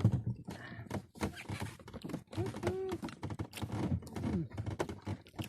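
Rapid, irregular knocking and clattering, like hard objects tapping against each other, with a brief voice call about halfway through.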